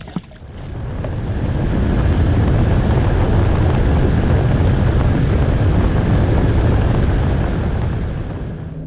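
Bass boat running at speed across open water: a loud, steady rush of wind buffeting the microphone along with hull and water noise, swelling up over the first second or two and fading near the end. A short click comes just at the start.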